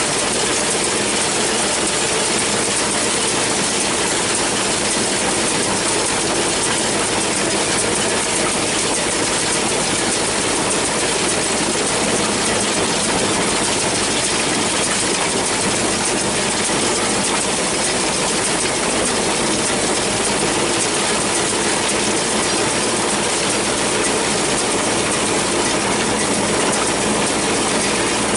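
John Deere 6400 tractor's diesel engine running under load while the New Holland 648 round baler clatters steadily, its pickup, chains and rollers rattling as it takes in hay. The noise is loud and unchanging throughout.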